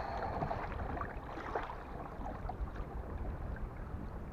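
Water lapping and splashing lightly against a plastic fishing kayak's hull, with scattered small ticks and a low wind rumble on the microphone.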